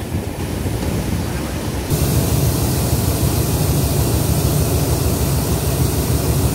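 Diesel train running, its engine a low rumble under a steady rushing noise. About two seconds in, the sound switches abruptly to a louder, even rush with a heavier rumble.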